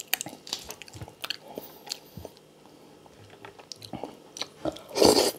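Close-miked eating of crispy pata, deep-fried pork leg: scattered crackles and clicks as the crisp meat and skin are torn and chewed, then a loud crunch near the end.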